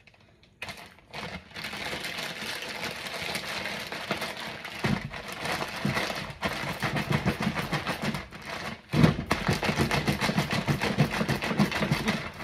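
Plastic zip-top freezer bag crinkling and rustling as chicken drumsticks are squeezed and kneaded in olive oil inside it. The sound starts after a brief quiet moment and grows fuller and heavier about five seconds in and again about nine seconds in.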